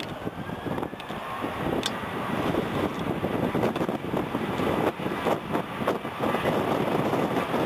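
Boeing 737's CFM56 turbofan engines spooling up to takeoff thrust as the jet starts its takeoff roll, a broad roar that grows louder about two to three seconds in.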